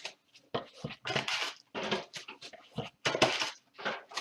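Topps Premier Gold mini-pack wrappers being torn open and crinkled by hand: a string of short, uneven rustling bursts.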